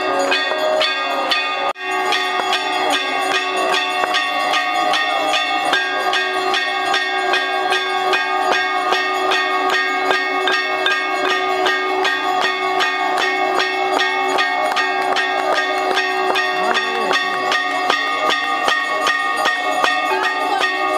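Temple bells ringing continuously for an evening aarti: a fast, even clanging of about two to three strokes a second, the bell tones ringing on between strokes.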